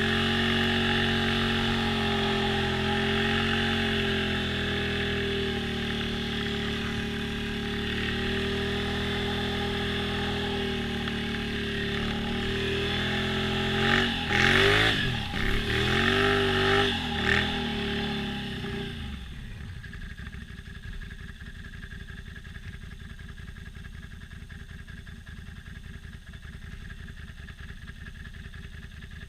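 ATV engine running steadily, then revved up and down several times in quick succession about halfway through, before dropping back to a low, quieter idle.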